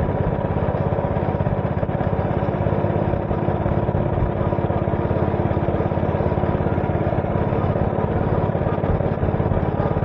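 A small engine running steadily at constant speed, with a fast, even pulse throughout.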